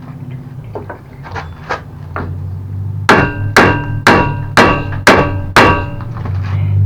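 Hammer striking metal to drive out a rusty hinge pin on a mobility scooter. A few light taps come first, then six hard, ringing blows about half a second apart, over a steady low hum.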